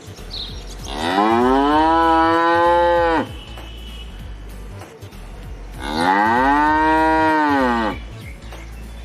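Cattle mooing: two long moos about three seconds apart, each rising in pitch at the start, held for about two seconds, then dropping off.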